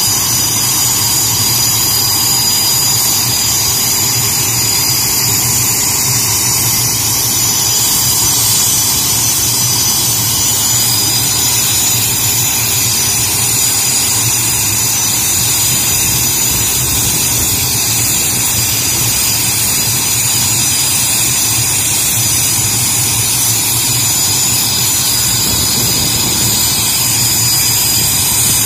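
BAE Hawk jet's turbofan engine running steadily at a constant level, with a high-pitched whine over a low rumble.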